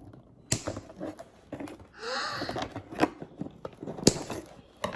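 Toy packaging being handled and opened: scratchy rustling and a few sharp clicks, the loudest just after four seconds.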